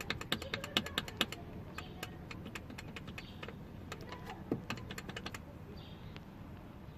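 Rapid light clicks and taps, about ten a second for the first second and a half, then sparser, from hands handling loose interior trim and fittings in the car.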